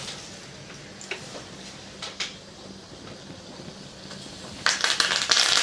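Tempering spices in a small pan of hot oil: a low, quiet sizzle with an occasional pop, then near the end a sudden loud sizzling and crackling as more seasoning is dropped into the oil.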